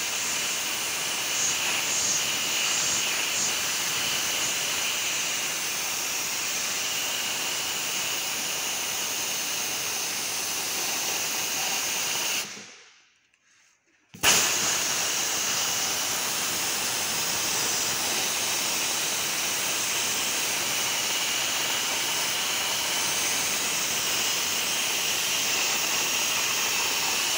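Dry-ice blasting gun firing compressed air and dry-ice pellets at a car's underbody metal in a steady hiss. About halfway through the blast stops and falls away to near silence, then starts again abruptly a second and a half later.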